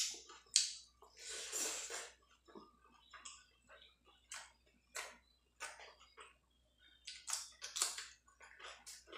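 Mukbang eating sounds of rice and fish fry eaten by hand: chewing and wet mouth clicks, with fingers squeezing and mixing rice on a plate. A string of short, irregular clicks, with one longer rustle between one and two seconds in.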